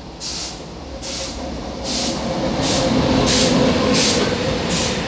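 Electric freight locomotive and its coal-loaded open wagons passing at speed. A steady rail rumble with a faint hum grows louder as the locomotive goes by, and a hissing pulse repeats about every three-quarters of a second.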